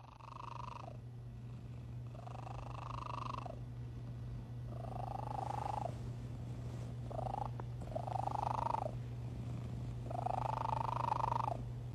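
Domestic cat purring steadily while kneading, close to the microphone. A higher tone swells and fades in time with the purr, six times, about every two seconds.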